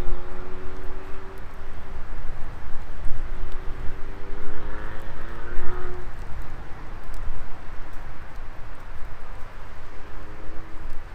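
Wood fire burning in a Coleman Fire Disc fire pit, with a steady low rumble and scattered faint crackles. A faint pitched tone slowly rises three times: near the start, in the middle and near the end.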